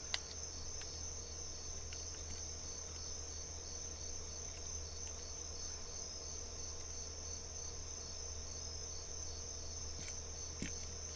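Crickets chirping steadily in a continuous high pulsing trill, over a low hum, with a few faint clicks of handling.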